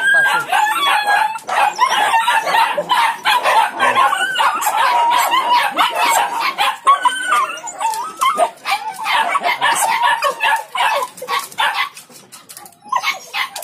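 Many Indonesian village dogs (anjing kampung) barking and whining together in a noisy din, excited while waiting for their food. The racket eases near the end.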